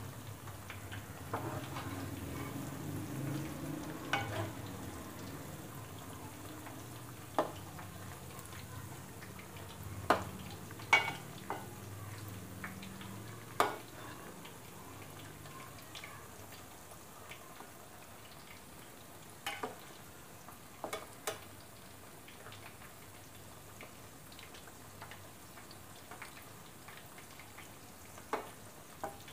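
Battered chicken pakoras deep-frying in hot oil, a steady bubbling sizzle. A perforated metal skimmer clinks sharply against the pot a handful of times as the pieces are turned.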